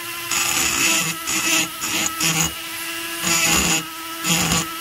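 High-speed rotary grinder with a small burr, running with a steady high whine as it cuts into the transfer port of an Echo CS-670 chainsaw cylinder. The hiss of the cut comes and goes several times as the burr is worked in short passes.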